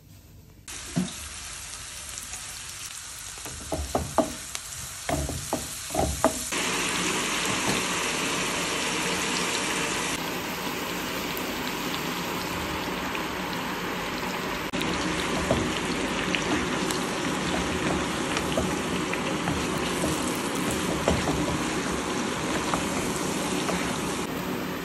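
Pork steaks and sliced onions sizzling as they fry in hot oil in a nonstick pan: a steady sizzle with small spitting ticks. There are a few sharp knocks about four to six seconds in, after which the sizzle grows louder.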